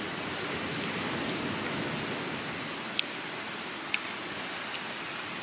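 Steady hiss of beach ambience, surf and air, with a couple of faint short clicks about three and four seconds in.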